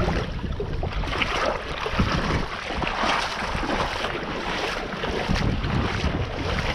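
Wind buffeting the microphone: a steady, uneven rumbling rush, with wave and water noise mixed in.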